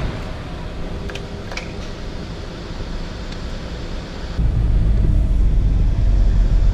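Car idling at a car-park barrier with the window down, with a couple of sharp clicks from the ticket machine about a second in. About four and a half seconds in, the sound switches to a strong low rumble inside the car as it drives on.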